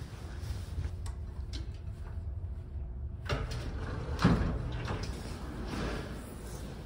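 Footsteps and handling noise while walking through an enclosed pedestrian skyway, over a steady low rumble, with a sharp knock about four seconds in.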